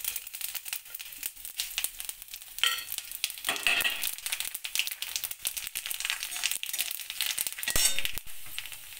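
Whole cumin and nigella seeds sizzling and crackling in hot oil in a metal kadai with dried red chillies and bay leaves, the tempering (phoron) for a fish curry. Near the end a metal spatula scrapes across the wok as the spices are stirred.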